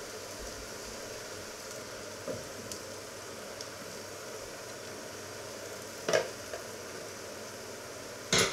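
Steady sizzle of food frying in a covered pan on the hob, with a light knock about two seconds in, a sharper knock about six seconds in, and a loud clatter near the end as a metal butter dish is picked up.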